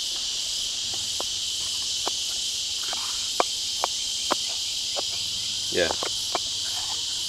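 Steady high insect chorus, with about half a dozen light sharp clicks as the sliding wooden panels of a hand-carved puzzle box are worked open.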